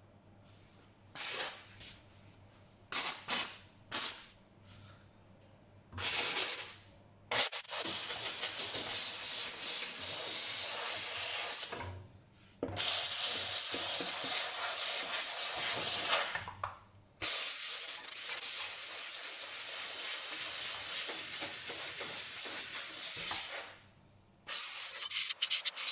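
Kärcher SC 1.030 steam cleaner blowing steam from its nozzle: a few short hissing puffs, then long blasts of several seconds each with brief pauses between.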